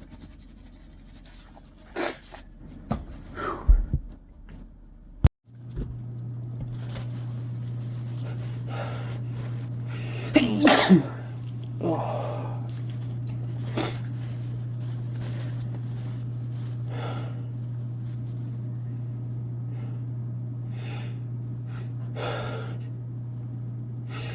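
A man sneezing repeatedly in a sneezing fit, with short sharp breaths and sniffs between the sneezes. The loudest is a voiced sneeze with a falling cry about ten seconds in. A sharp click and a brief dropout come about five seconds in, and a steady low hum runs under everything after it.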